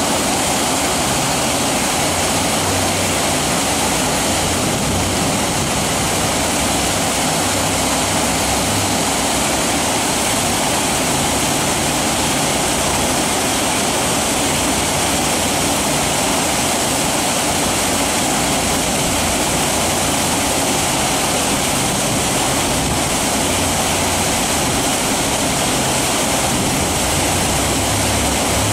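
Big-river whitewater rushing steadily through a wave train of standing waves, with the engine of a cabin jet boat running underneath as the boat surfs the waves.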